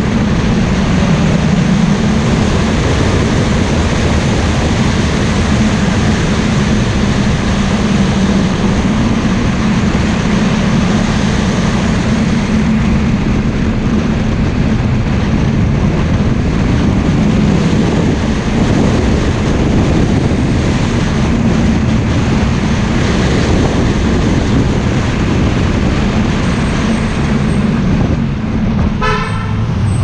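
A car driving steadily downhill, its engine, tyres and wind making an even, loud running noise. About a second before the end, there is one short horn toot.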